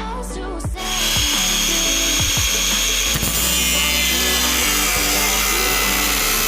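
Electric grinder running against the steel of an old saw blade, starting abruptly about a second in and then holding a steady, loud, whining hiss that sags slightly in pitch midway as it bears on the metal.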